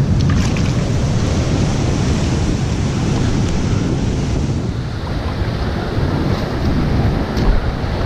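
Surf washing over lava rocks at the shoreline, a steady rushing hiss, with wind buffeting the microphone as a heavy low rumble.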